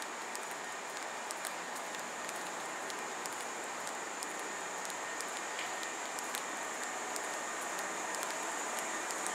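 Steady hiss and hum beside a standing Kintetsu 2800-series express train, with a thin, high steady whine and scattered light clicks.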